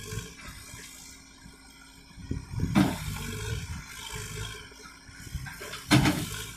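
Backhoe loader's diesel engine running under load as the machine pushes against a stubborn dead tree, with two sudden loud noises, one about three seconds in and one near the end.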